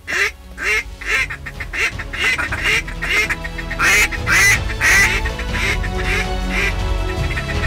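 A long, rapid run of duck quacks, about three a second and loudest about four to five seconds in, over background music with steady held tones.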